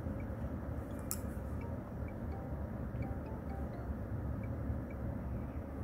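Faint soft ticks of a crochet hook working yarn through stitches during decreases, about twice a second, with one sharper click about a second in, over a low steady room hum.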